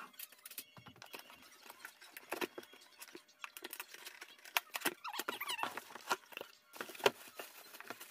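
A cardboard box being opened and its packing handled: scratchy rustling and crinkling with many small clicks and taps, and one sharp knock about seven seconds in.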